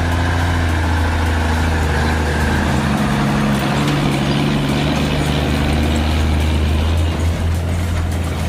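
Heavy truck's diesel engine running with a steady, deep drone.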